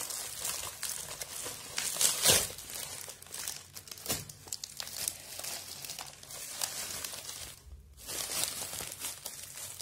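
Packaging being crinkled and torn as cookware is taken out of its box: irregular rustling and crackling, with one louder crackle about two seconds in.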